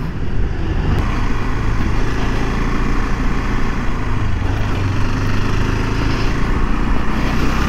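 Motorcycle engine running steadily while riding, with wind and road noise over the microphone.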